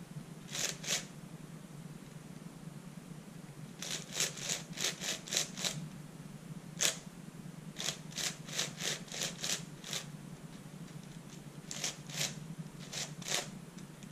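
Layers of a 4x6x8 shapeshifter cuboid puzzle, built from an MFJS Meilong 8x8 with 3D-printed plastic extensions, being turned by hand: short plastic clicks in quick runs, with pauses of a second or two between runs. The extensions are sanded smooth, so the turns have no swooshy scratch and sound like a regular 8x8 cube.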